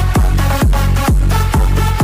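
Electronic dance music played loud through a street DJ rig's horn loudspeakers, with a heavy bass kick drum about twice a second.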